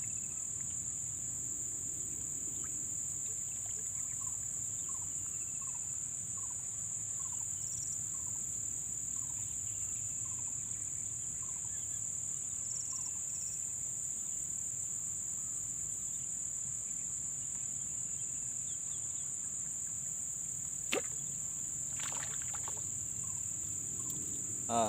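Steady high-pitched insect chorus droning, with faint short chirps repeating about once a second during the first half. One sharp click comes about 21 seconds in, then a brief rustle.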